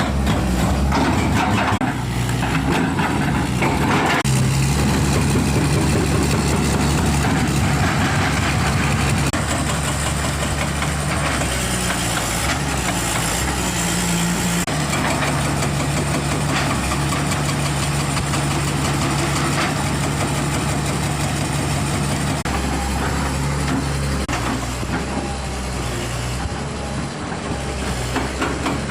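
Excavator's diesel engine running steadily, its pitch stepping up and down a few times as the load or engine speed changes.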